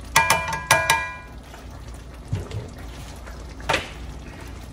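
Two sharp ringing clinks about half a second apart as kitchen tongs are tapped against the rim of a metal wok, then a softer knock a few seconds later.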